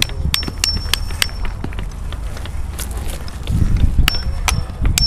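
Runs of sharp metallic taps, about three a second, each with a brief high ring, from hand tools striking pavers, over a steady low rumble.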